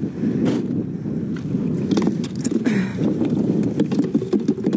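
Cardboard and loose packaging being gathered up off concrete by gloved hands: scattered rustles and light clicks and knocks, over a steady low rumble.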